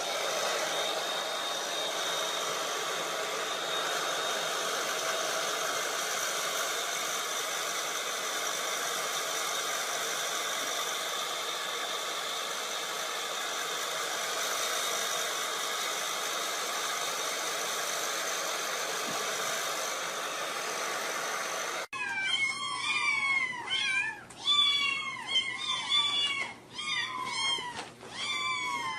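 A hair dryer blowing steadily for about 22 seconds. It cuts off suddenly and is followed by several young kittens mewing repeatedly, their calls overlapping.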